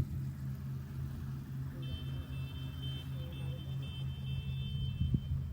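Engine of a rice harvesting machine running at a steady drone. About two seconds in, a brief high-pitched tone sounds above it for a second or so.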